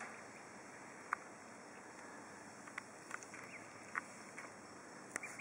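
A steady, faint outdoor background with about half a dozen brief, soft sounds from a small group of week-old Khaki Campbell ducklings feeding and moving in the grass.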